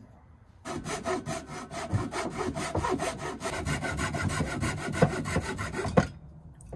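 Hand saw cutting through black plastic drain pipe with quick back-and-forth strokes, to size it to fit the sink drain. The sawing starts just under a second in and stops near the end.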